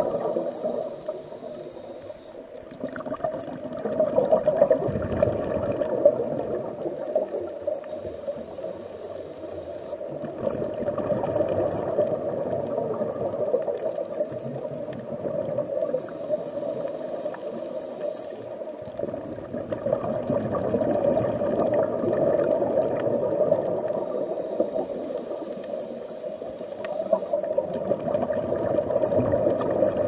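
Underwater ambience as heard while diving: a continuous watery hum that swells and fades every several seconds.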